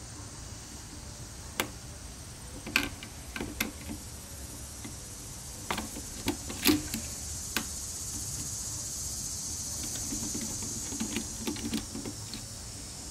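Irregular small clicks and taps of hand tools and metal parts being handled while the float bowl screws of Hitachi dual carburetors are worked loose, about a dozen sharp clicks in all, with the loudest a little under 3 seconds in and again around the middle.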